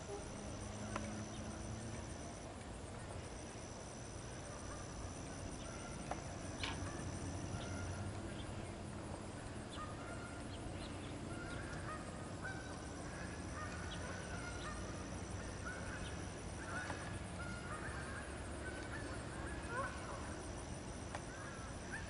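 Faint pond-side ambience: a steady high-pitched insect drone that cuts out and restarts several times, and from about halfway through, short repeated bird calls, over a low rumble.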